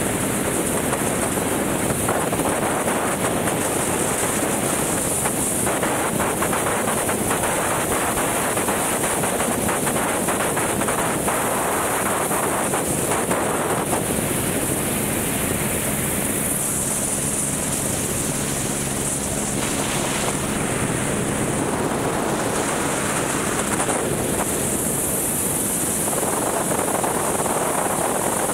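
Helicopter in flight: continuous rotor and engine noise mixed with wind buffeting the microphone. A low steady hum with several tones comes through from about halfway in for roughly ten seconds.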